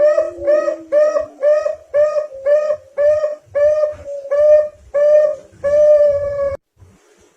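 Zebra dove (perkutut) cooing: a rapid run of short, arched notes, about three a second and slowly spacing out, ending in one longer held note that cuts off near the end.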